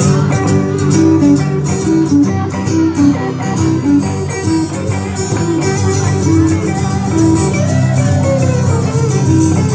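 Live band music with guitar to the fore, playing a run of repeated plucked notes over a steady low accompaniment, with a gliding melodic line near the end.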